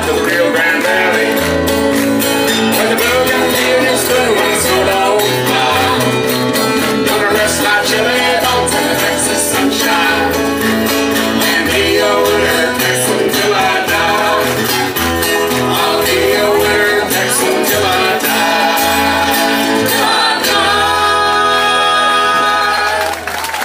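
A live acoustic trio playing, with acoustic guitars and voices, ending on a long held final chord near the end.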